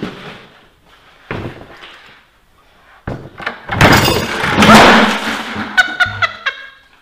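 A plastic bucket of wet paper pulp thunks as it is handled, then about three seconds in the pulp sloshes out of the bucket in a loud, wet splash over the person tipping it. This is followed by a high shriek that turns into laughter near the end.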